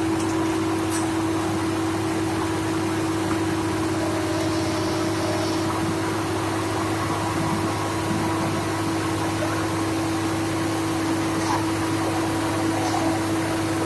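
Crawler-mounted drilling rig's engine running steadily, an even mechanical drone with a constant hum.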